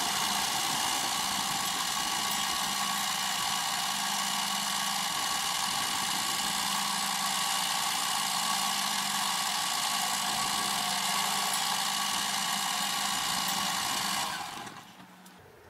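Small metal lathe running with a spinning metal workpiece in the chuck as the tool takes a turning cut: a steady whine with a high held tone. About 14 s in the lathe is switched off and the sound dies away over a second.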